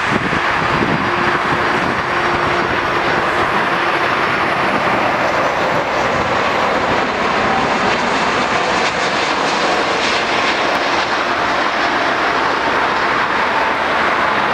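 Jet airliner engine noise: a loud, steady rush with a few faint tones in it.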